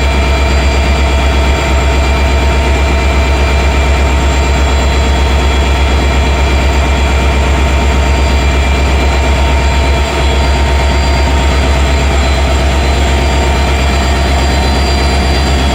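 WDP4D diesel locomotive's 16-cylinder two-stroke EMD 710 engine idling with a steady, deep, powerful hum.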